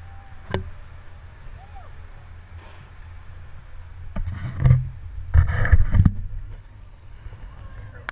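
Wind on the microphone and water rushing past a moving inflatable boat's hull as it runs through its bow wave, with a low steady rumble. Loud bursts of splashing spray and wind come about four seconds in and again between five and six seconds.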